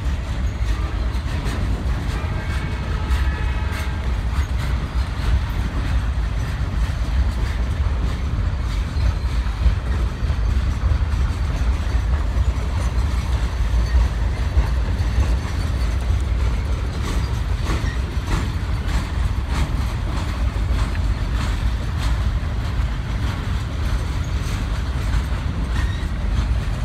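Norfolk Southern Triple Crown RoadRailer train rolling past, its highway trailers riding on rail bogies: a steady heavy rumble of steel wheels on rail, with scattered clicks as the wheels cross rail joints.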